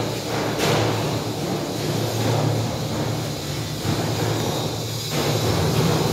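Steady low machine drone with a hiss over it, growing a little louder about five seconds in.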